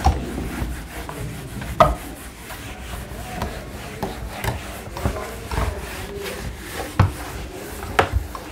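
A whiteboard being wiped clean with a hand-held duster in steady rubbing strokes, with a few sharp knocks in between.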